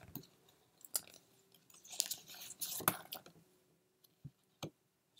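Paper sheets and cards being taken out and handled, rustling, with a few light taps and clicks; the longest rustle comes about two seconds in.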